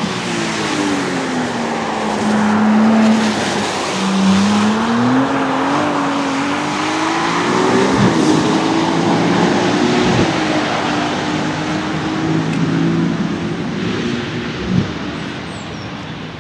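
Ferrari F80's twin-turbo V6 hybrid engine under load. The note falls, then climbs steadily under acceleration and drops back sharply with an upshift about eight seconds in, stepping down again a couple of times after. It fades near the end, with the tyres hissing through spray on the wet track.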